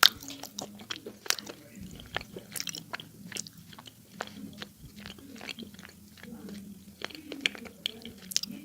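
A person biting and chewing crunchy clay, with many sharp cracks and crunches at irregular intervals.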